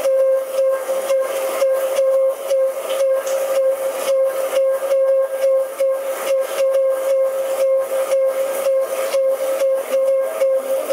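Experimental electronic music: a single high drone tone held steady, over a hiss cut by an even, fast pulse of short noisy clicks.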